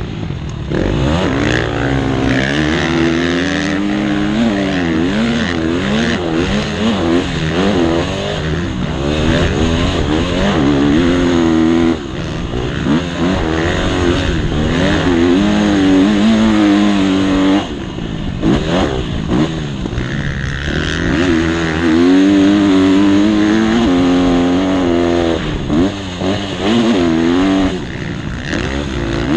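Motocross bike engine heard from on board, revving up and down as it is ridden around a dirt track, the revs falling off briefly several times as the throttle is closed and reopened.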